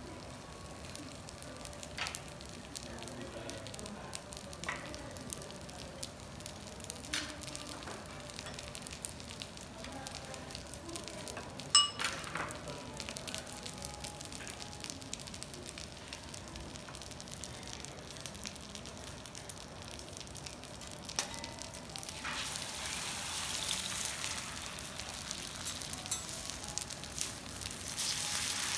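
Metal teppanyaki spatulas clinking and scraping on a steel griddle, with one sharp ringing clink about twelve seconds in. A hissing sizzle starts about three quarters of the way through and grows louder near the end as an egg fries on the hot plate.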